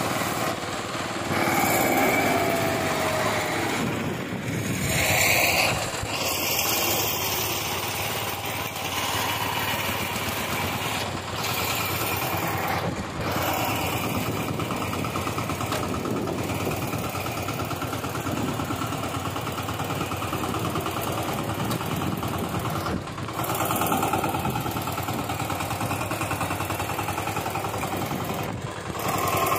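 Single-cylinder diesel engine of a VST Shakti 130 DI power tiller running steadily under load while its rotary tines churn the soil.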